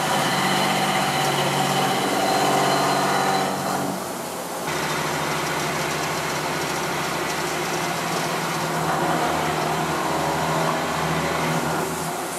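Hwacheon M3-5AX five-axis CNC machining center milling an SUS304 stainless steel impeller under flood coolant: a steady spindle and cutting hum with the hiss of spraying coolant. The sound dips briefly about four seconds in, then runs on steadily with a slightly different tone.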